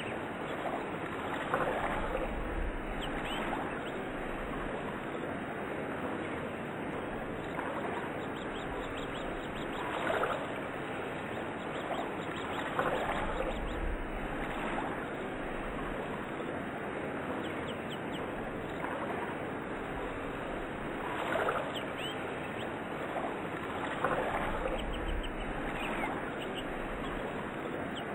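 Nature soundscape of running water with birds chirping over it, the water noise swelling louder every few seconds.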